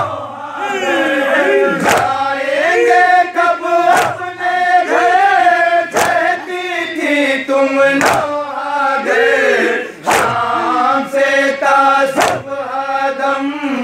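A crowd of men chanting a noha in chorus. Loud unison chest-beating (matam) lands as a sharp slap about every two seconds, seven times.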